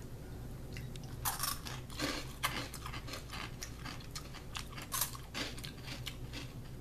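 Crisp black ramen-flavoured potato sticks being bitten and chewed: irregular short, sharp crunches, the strongest about a second and a half, two and a half, and five seconds in.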